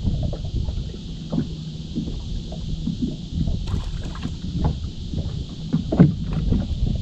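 Low, rumbling wind-and-water noise of a small fishing boat on the water, with scattered small knocks and one louder bump about six seconds in.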